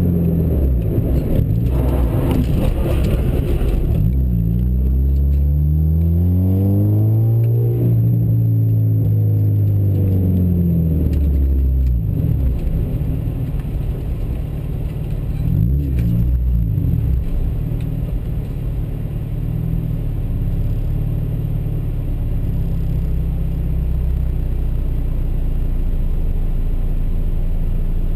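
Vehicle engine under a camera mounted on the vehicle, with wind rush at first. Its pitch rises and falls through gear changes as it slows, and it settles to a steady low idle for about the last ten seconds.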